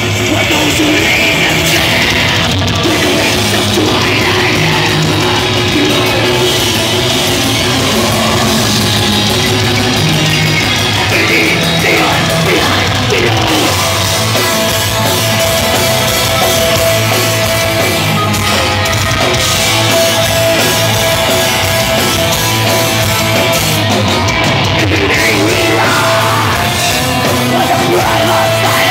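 A black metal band playing live at full volume: distorted electric guitars, drum kit and harsh, yelled vocals in one dense, unbroken wall of sound.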